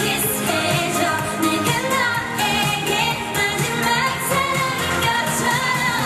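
K-pop song with singing over a full backing track.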